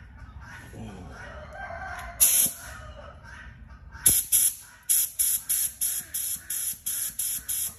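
A rooster crows in the background, then a paint spray gun hisses as it sprays primer onto a car rim: one short burst a couple of seconds in, then from about halfway a quick run of short bursts, about three a second.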